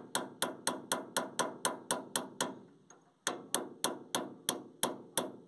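Metal-on-metal hammer strikes at the hub of a tractor trolley wheel during a wheel-bearing change. The strikes come fast and even, about four a second, with a ringing edge, pause briefly about halfway, then resume.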